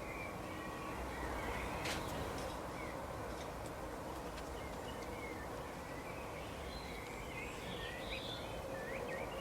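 Small birds chirping in short, scattered high calls, busiest near the end, over a steady outdoor background hiss with a faint steady hum. A single sharp click about two seconds in.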